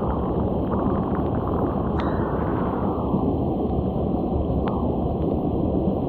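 Steady rushing of a shallow creek's flowing water, with a couple of brief sharp clicks.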